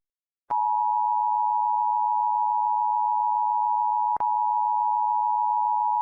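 A single steady electronic attention tone of an emergency alert broadcast, pitched at about 1 kHz, starting about half a second in. It is broken only by a short click about four seconds in.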